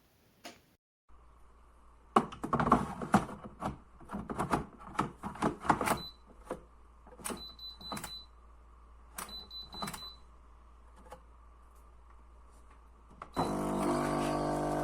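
Semi-automatic espresso machine being handled and run: irregular clicks and knocks, a few short high beeps, then a steady electric buzz, as from the machine's pump, that starts suddenly near the end.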